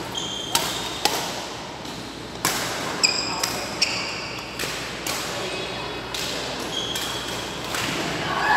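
Badminton rally: rackets hitting a shuttlecock with sharp pops about a second apart, mixed with short high squeaks of court shoes on the floor, in a large echoing sports hall.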